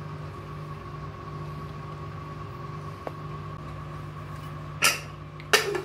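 A steady mechanical hum with a faint constant high whine, then two sharp metallic clanks near the end as the aluminium pressure cooker is handled on the gas stove.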